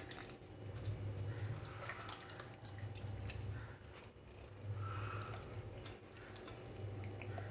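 Hands rubbing a thick spice-and-yogurt masala into a whole raw chicken, giving faint wet squishing and small scattered clicks over a low hum.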